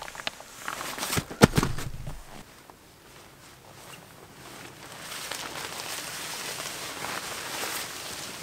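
Camouflage tarps and their stuff sacks being handled. A few sharp crinkles and knocks come in the first two seconds, the loudest about a second and a half in. From about five seconds on, the tarp fabric gives a steady rustle as it is spread out.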